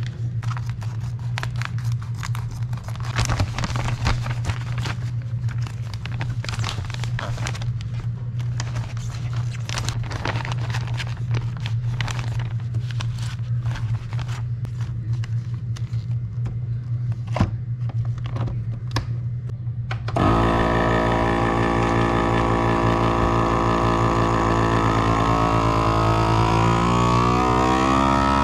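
Plastic vacuum-seal bag crinkling and rustling as it is handled, over a steady low hum. About twenty seconds in, a FoodSaver vacuum sealer's pump starts with a loud whine, its pitch climbing slightly near the end as it draws the air out of the bag.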